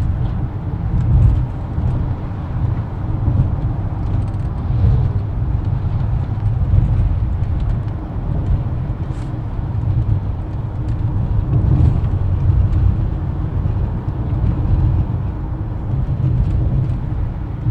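Steady low rumble of a car driving, heard from inside the cabin: engine and tyre noise on the road, with no change in pace.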